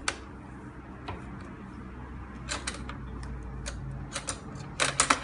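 Metal cutlery clinking and rattling in a kitchen drawer's organizer as a small child rummages through it: scattered single clinks, then a quick run of clatter near the end.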